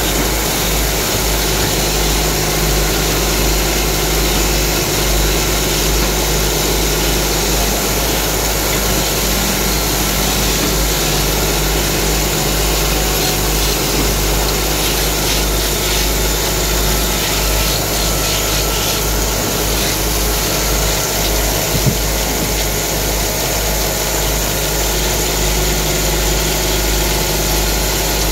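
Belt-driven wood lathe running steadily, its drive hum and belt noise constant, with one sharp knock about 22 seconds in.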